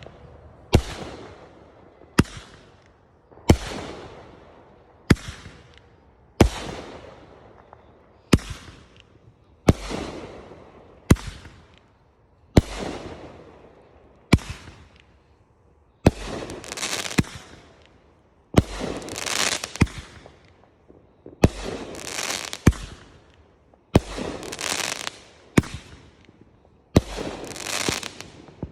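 Multi-shot aerial firework cake firing shot after shot, a sharp bang about every second and a half, each followed by a fading crackling hiss. From about halfway through, the crackling after each shot grows louder and longer.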